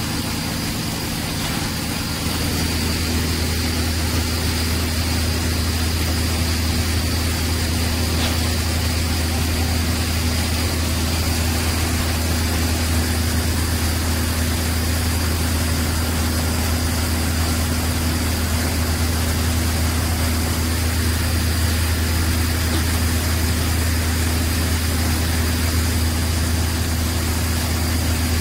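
Heavy machinery engine running steadily with a deep hum, getting a little louder about two seconds in and then holding steady, with a faint high whine above it.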